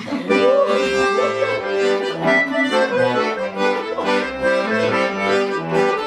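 Accordion playing an instrumental interlude of a chastushka tune: held chords with a melody moving above them and separate low bass notes sounding underneath.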